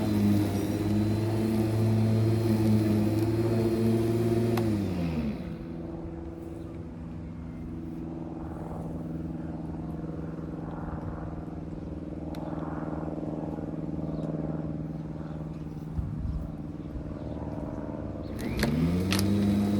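Lawn mower's small petrol engine running at high speed, dropping to a steady idle about five seconds in, then revving back up near the end.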